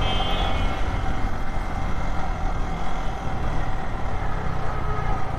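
Motorcycle running at a steady cruise through city traffic: a low engine hum with road and wind noise. A brief high tone sounds right at the start.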